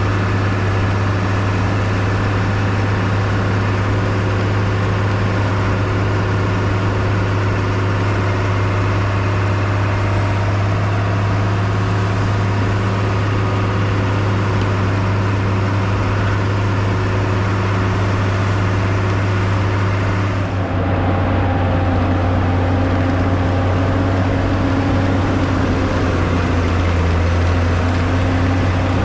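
1998 Bombardier BR-160 snowcat's engine running steadily under load as the front blade pushes snow, with a strong low hum. About two-thirds of the way in the sound shifts abruptly, and the engine note then climbs a little.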